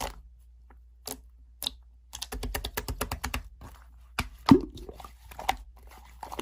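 Slime being pressed and played with, giving a quick run of small crackling clicks and pops, with a few scattered single clicks either side.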